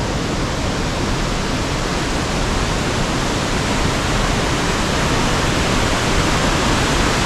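Glen Ellis Falls rushing steadily at high flow: a loud, even roar of falling water.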